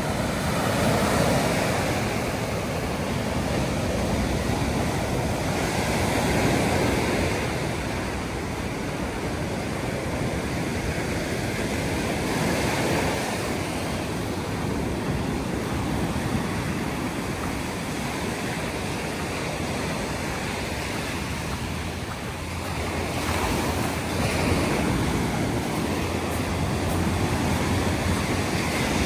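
Sea waves breaking and washing up a sandy beach, the surf swelling and easing every few seconds. Some wind rumbles on the microphone near the end.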